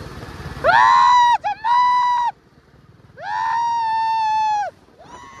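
A man's voice yelling long, high 'hooo' whoops, three in a row. Each one swoops up, holds steady, then drops away.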